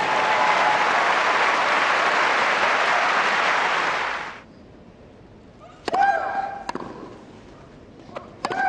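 Tennis crowd applauding for about four seconds, stopping fairly suddenly. Then a rally begins: sharp racket strikes on the ball, the harder ones with a player's short grunt, around six seconds in and again near the end.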